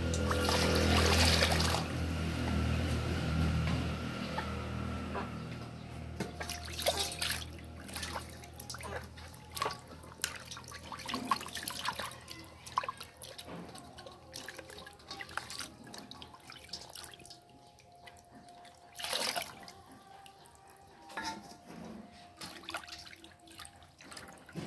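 Water splashing and sloshing in a stainless-steel basin as a whole plucked chicken is rubbed and rinsed by hand, in irregular splashes. A steady low hum is loudest in the first few seconds and fades out about five seconds in.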